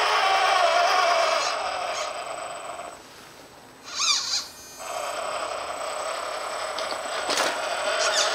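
Cross RC UC6 6x6 scale truck's electric motor and gearbox whining as it crawls, the pitch wavering with the throttle, fading out after about two seconds. A brief high chirping sound follows about four seconds in.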